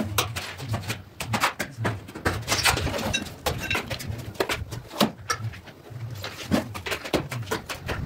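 Steel trowel scraping and clinking against a hawk and a mortar bucket, with repeated sharp taps and slaps as wet mortar is scooped up and thrown onto a wall.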